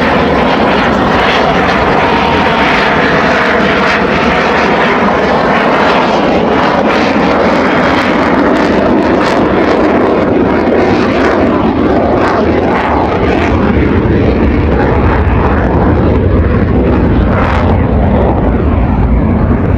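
Saab Gripen fighter's single afterburning turbofan engine making a continuous jet roar as it flies a display pass, with a deep rumble that grows stronger in the second half.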